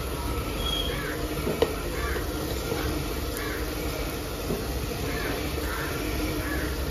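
Onion-tomato masala sizzling in a pressure cooker on a low flame as spice powders are sprinkled in, with one sharp tap about a second and a half in. Crows caw repeatedly in the background.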